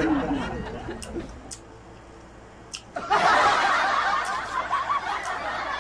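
A laughing sound effect laid over the video: the laughter fades out over the first second and a half, a quieter stretch with a few faint clicks follows, and a dense burst of laughter comes back about three seconds in.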